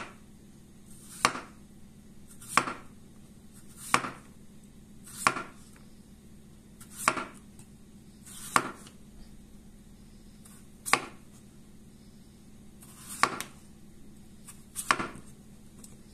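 Kitchen knife slicing a peeled raw potato into rounds on a wooden cutting board. Each cut is a short crisp slicing noise ending in a knock of the blade on the board, about nine cuts a second or two apart.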